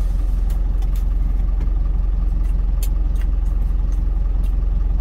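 A truck's engine idling steadily, heard from inside the cab as a low, even drone, with a few faint clicks from eating.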